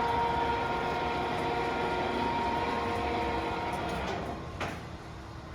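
LeBlond 36" x 144" hollow-spindle engine lathe running, a steady mechanical hum with several steady whining tones. About four seconds in it quietens, and a single click follows shortly after.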